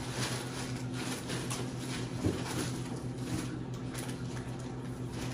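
Faint rustling and handling of packaging as items are rummaged through, with a small knock about two seconds in, over a steady low hum.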